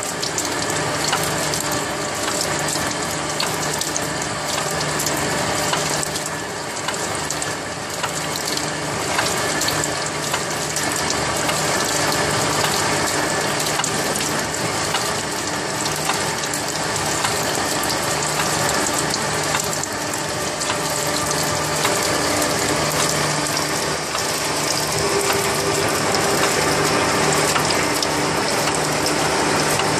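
Straight bevel gear generator cutting the teeth of a large metal bevel gear: a steady mechanical clatter of reciprocating cutting tools and gearing, with fine rapid ticking, under a flood of cutting oil. A steady hum joins in near the end.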